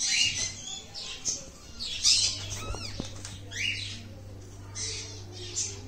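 Pug in labour panting in quick, noisy breaths, with short high-pitched rising whimpers every second or two.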